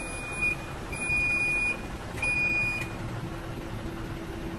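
An Isuzu Giga truck's warning beeper sounding three even, high beeps about a second apart, then stopping, over the steady running of its 6UZ1 diesel engine.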